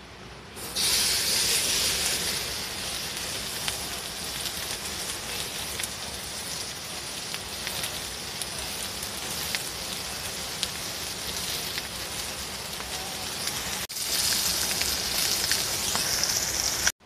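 Seasoned meat hits hot oil in a frying pan over campfire embers and starts sizzling loudly about a second in. It keeps sizzling and crackling steadily, breaks off for a moment near the end, then comes back loud.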